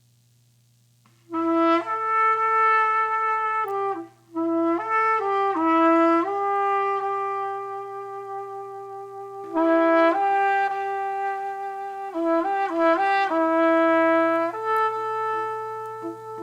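Trumpets playing held notes together in harmony. They come in about a second in, break briefly near four seconds, then play longer sustained chords, with a faint steady low hum underneath.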